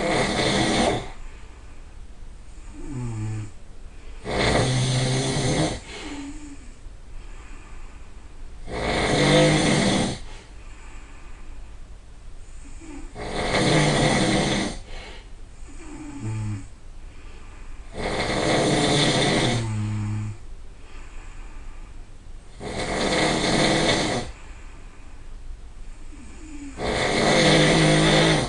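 A person snoring loudly and rhythmically: seven rasping snores, one every four to five seconds. Between some of them comes a shorter, quieter sound that slides down in pitch.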